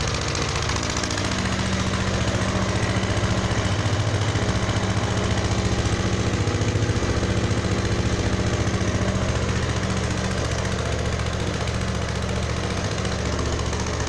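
Small Kisankraft petrol engine running steadily at a fast, even pulse, driving the vacuum pump of a single-bucket milking machine.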